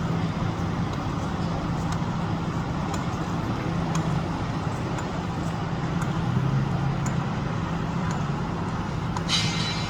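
Engine of heavy construction machinery running steadily with a low hum. A short hissing burst comes near the end.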